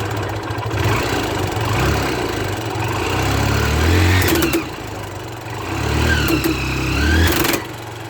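Motorcycle engine running and revved twice, with the chain driven over a badly worn front sprocket and worn chain, whose noise comes from the chain slipping over the worn sprocket teeth.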